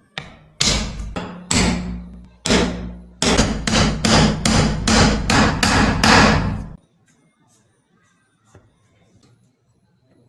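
Repeated hammer blows with a ringing tail. A few spaced strikes come first, then a quick steady run of about three a second, which cuts off suddenly about two-thirds of the way in.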